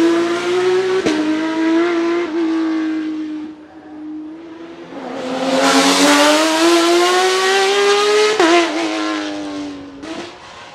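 Porsche 911 racing cars' 4.0-litre flat-six engines under hard acceleration. First the 991 GT3 Cup runs at high revs with a quick shift about a second in. After a short lull the 991 RSR's flat-six climbs steadily in pitch and drops sharply at a gear change near the end.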